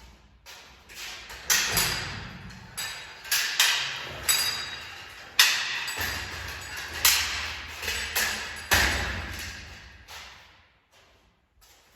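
A run of irregular knocks and thuds, about a dozen over some ten seconds, each ringing briefly, from handling and fitting parts of a garage door opener. They thin out and fade near the end.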